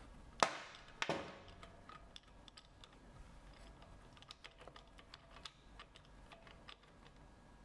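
Metal spark plug spanner turned by hand in a motorcycle cylinder head's plug well: two sharp metallic clicks about half a second and a second in, then faint, scattered light clicking as it turns.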